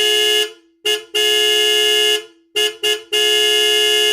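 Car horn honking in a pattern: a short beep, a quick toot, a long blast of about a second, then two quick toots and another long blast.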